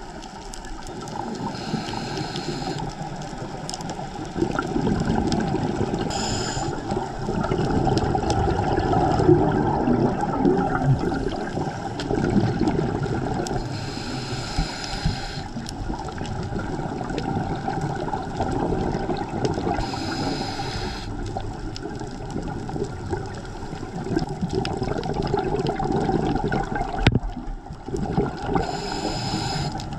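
Scuba diver breathing through a regulator underwater: a short hiss on each inhale, repeating every six to eight seconds, with long stretches of exhaled bubbles in between.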